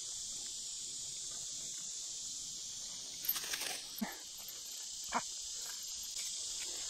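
Insects droning steadily in the woods, with a few short metallic clinks from a hand-lever Texas fence fixer being worked on a barbed-wire strand, the loudest a little after halfway.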